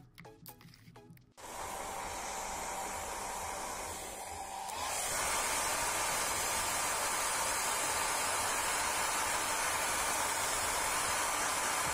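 Hair dryer blowing air over a freshly washed camera circuit board: a steady rushing hiss with a faint motor whine, which gets louder about five seconds in.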